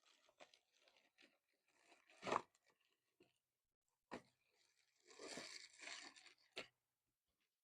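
Faint handling of a cardboard box and its packaging while unboxing a handheld paint sprayer: scattered rustling and crinkling, a thump about two seconds in, a sharp click near the middle and a longer rustle a little later.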